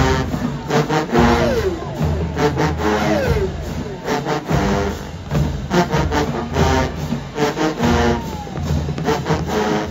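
HBCU show-style marching band playing loud: brass over a heavy sousaphone bass and a drumline. The brass slides down in pitch a few times.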